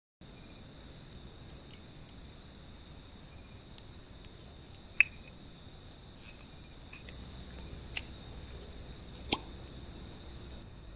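A steady chorus of night insects, with a few sharp pops from a campfire: the loudest about halfway through, two more later on.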